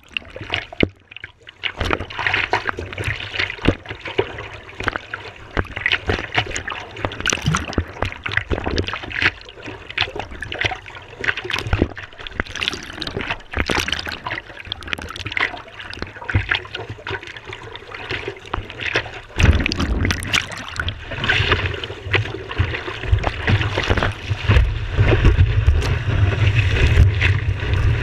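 Seawater lapping and splashing against a waterline action camera as a surfer paddles, with many small splashes. About two-thirds of the way in, a loud low rushing sound starts and builds toward the end as the surfer catches the wave and whitewater sprays around the camera.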